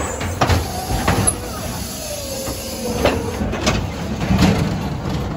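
Ghost train car rattling along its track, with several sharp knocks and bangs as it pushes out through the doors into the open, over a wavering whine in the background.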